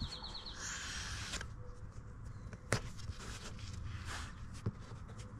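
Faint handling noises: a short rustle about a second in, then two sharp clicks.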